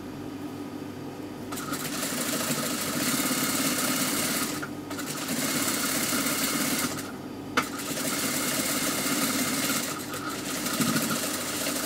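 Industrial sewing machine stitching a hem seam through cotton fabric, running in three stretches with short pauses between them. There is a single sharp click partway through.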